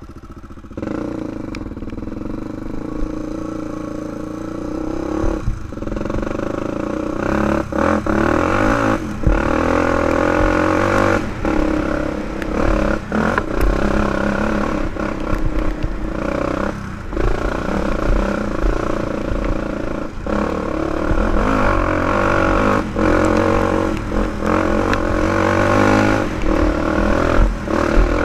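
A 2005 Honda 400EX ATV's single-cylinder four-stroke engine. It runs at lower revs for the first few seconds, then revs harder as the quad is ridden along a gravel trail, with the revs dropping briefly many times as the throttle comes off and goes back on.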